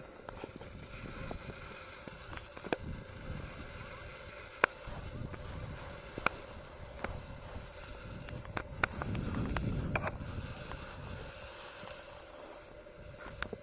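Wind buffeting the microphone as an uneven low rumble that swells near the middle, with a handful of sharp clicks and knocks scattered through it.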